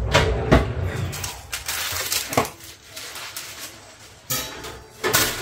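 Kitchen handling sounds as a tray of mini pizzas is put into the oven: a series of knocks and clatters, the loudest near the end, with scraping and rustling between them.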